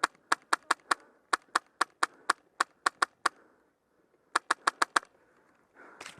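Airsoft gun firing quick single shots, about four a second, in three strings, the last coming after a pause of about a second.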